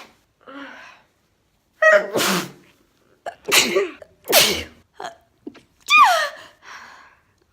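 A person sneezing several times in a row, short sharp sneezes about a second apart, one near the end with a high voiced squeak that falls in pitch.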